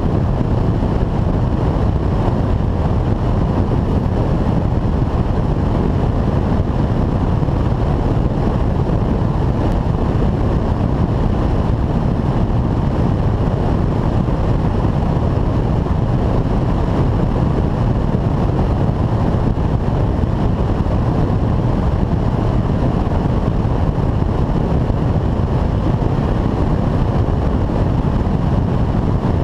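Steady in-flight rush of a high-wing light aircraft: wind buffeting the wing-mounted camera's microphone over the drone of the engine and propeller.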